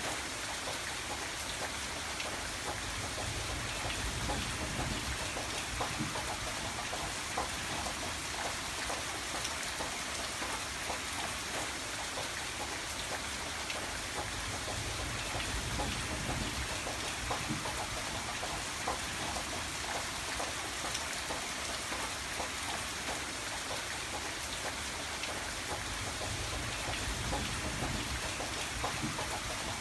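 Steady rain falling, with many separate drops striking a surface throughout.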